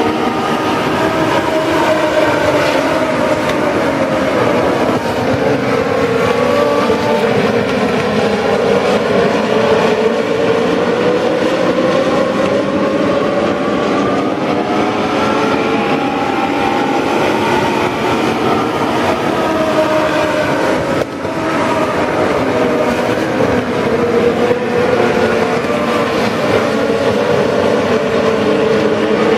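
A pack of Legends race cars, powered by Yamaha four-cylinder motorcycle engines, running laps together: a dense, continuous engine drone with several overlapping engine notes rising and falling as the cars accelerate down the straights and lift for the turns.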